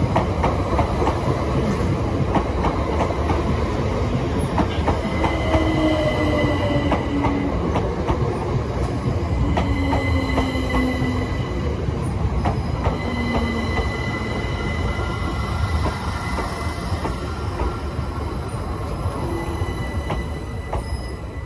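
A Great Northern Class 387 electric multiple unit passing close by: its wheels rumble and click over the rails, with steady high whining tones and a few short falling tones in the middle. The sound eases off near the end as the last carriage goes by.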